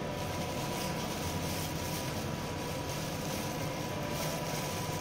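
Steady machine hum with a faint, even high whine and no distinct handling sounds: equipment running in a workshop.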